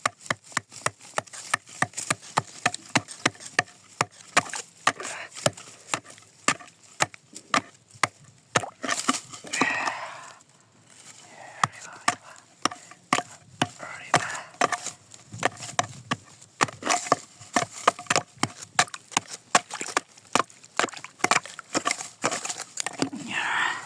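Rapid, irregular sharp knocks on ice, several a second, with a short lull about ten seconds in.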